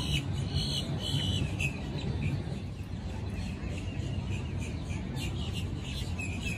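Small birds chirping, short high chirps repeating several times a second, over a steady low outdoor rumble.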